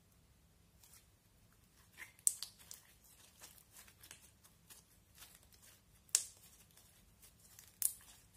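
Glittery slime being squeezed, folded and stretched in the hands: soft sticky crackles and clicks, with three sharper snaps about two, six and nearly eight seconds in.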